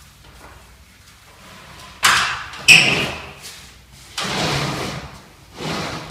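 A sudden scrape, then a sharp loud knock with a brief ring, followed by two longer scraping rustles, as of something being handled and set down.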